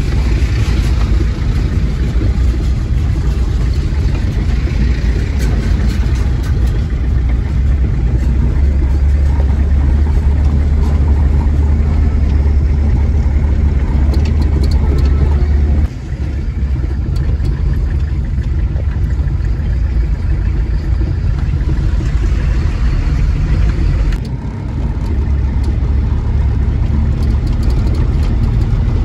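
Steady low rumble of a Toyota Hilux pickup's engine and tyres on a rough, stony road, heard from inside the cab. The sound drops off abruptly twice, about halfway through and again later.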